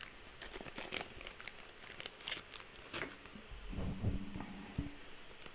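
Trading cards and a foil booster pack wrapper being handled, with quick crinkles and clicks over the first few seconds. A brief low hum about four seconds in is the loudest moment.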